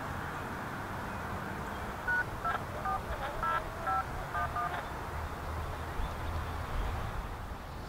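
A rapid string of about eight short touch-tone (DTMF) beeps, each two pitches sounding together, starting about two seconds in and lasting about two and a half seconds, over steady background hiss.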